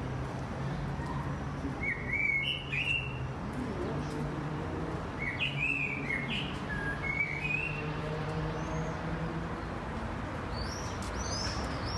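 A songbird singing short phrases a few seconds apart, with higher chirps near the end, over a steady low hum.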